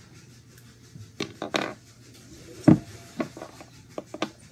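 Handling noises from a plastic Elmer's glue bottle being opened and squeezed over a glass bowl: a few short crackles and clicks, with one dull thump a little past the middle as the loudest.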